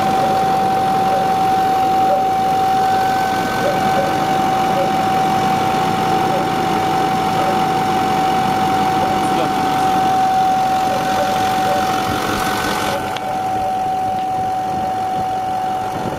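Ford F-250 truck idling with a steady high-pitched whine held unbroken over the engine sound, the strange noise the truck is making.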